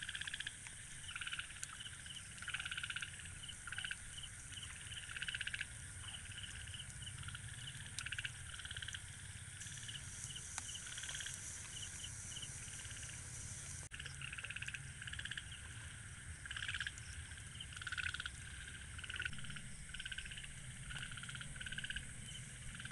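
Frogs calling at night: short, rapid pulsed croaks that overlap and repeat every second or so, over a steady high insect hiss and a low rumble.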